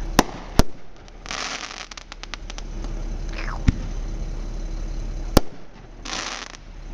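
Aerial fireworks going off: sharp bangs, two close together at the start, one in the middle and one later, with two short spells of crackling, the second near the end. A whistle falls in pitch just before the middle bang.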